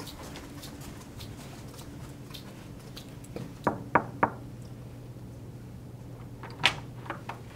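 Faint footsteps, then three quick knocks on a wooden door about four seconds in, followed a couple of seconds later by a sharp click of the door handle or latch, over a low steady hum.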